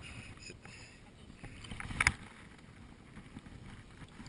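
Water lapping and sloshing around a float tube right at the microphone, with one short sharp splash or knock about two seconds in.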